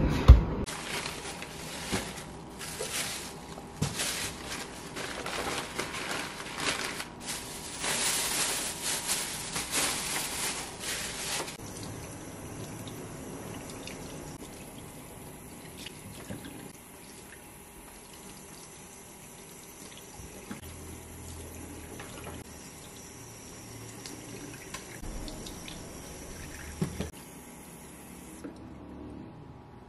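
Kitchen tap running into a stainless steel sink as whole fish are rinsed under the stream. The flow is louder for the first dozen seconds, then softer and steady, and it stops near the end. A single thump right at the start comes from the refrigerator door being pushed shut.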